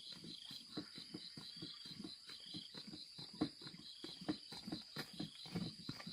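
Insects chirping in a steady pulsing trill, about five pulses a second, over a string of irregular low knocks.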